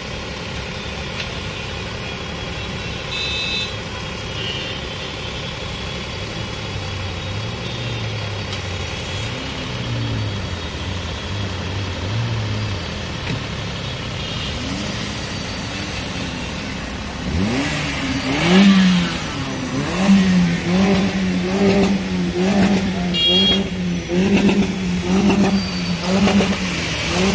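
Motor vehicles driving through deep floodwater on a road: engines running over a steady wash of water. About seventeen seconds in, a nearer engine grows louder, its note rising and falling over and over.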